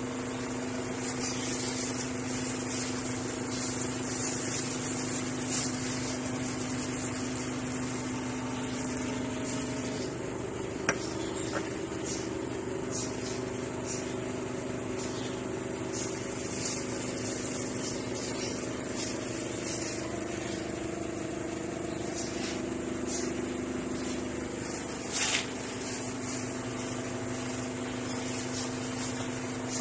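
A steady machine hum, holding the same tone throughout, with a couple of light clicks or knocks about eleven and twenty-five seconds in.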